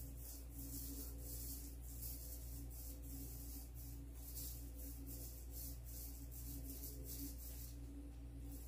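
Paint being applied to a door frame in repeated back-and-forth strokes: a faint, rhythmic hiss over a steady low hum.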